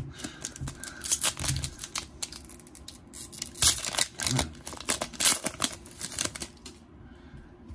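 Foil wrapper of a Panini Chronicles trading-card pack being torn open and peeled apart by hand, a run of crinkling and sharp tearing crackles that stops near the end.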